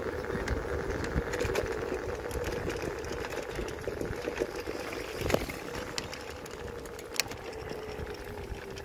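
Electric scooter riding over brick paving: a steady motor whine that sinks a little in pitch near the end, over the rumble and rattle of the wheels, with a couple of sharp knocks, the loudest about five seconds in.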